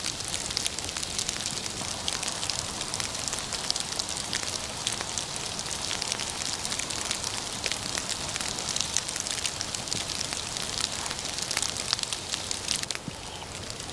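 Campfire crackling, with a steady hiss and frequent sharp pops; it turns quieter with fewer pops near the end.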